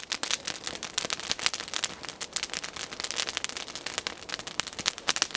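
Wood campfire crackling, a dense run of sharp, irregular pops and snaps. The fire has only just begun to burn up.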